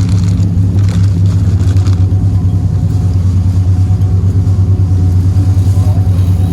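Boat engine running steadily with a deep, even hum and a regular pulsing beat.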